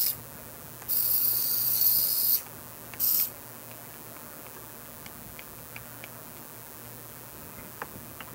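A Happy Cow micro RC submarine's tiny electric motors run in air in short high-pitched bursts as its transmitter controls are pressed. There is a brief burst at the start, a longer one of about a second and a half, and a short one about three seconds in, followed by a few faint clicks.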